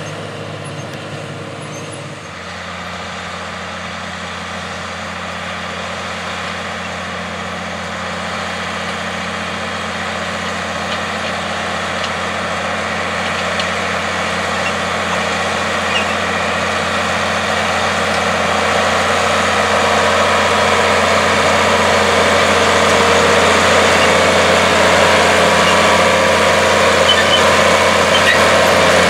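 A different tractor engine runs for the first two seconds. After that, a John Deere 4840's turbocharged six-cylinder diesel works under load pulling a row-crop cultivator, running steadily and growing louder as it comes closer.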